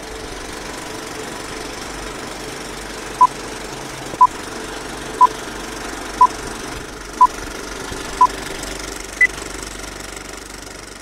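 Old-film countdown leader sound effect: a film projector running with a steady rattling clatter, and a short beep once a second, six times, then one higher-pitched beep a second after the last.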